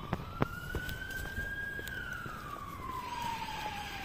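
Emergency vehicle siren in a slow wail, rising for about two seconds and then falling, from a vehicle heading out on a blue-light run. A couple of sharp clicks near the start.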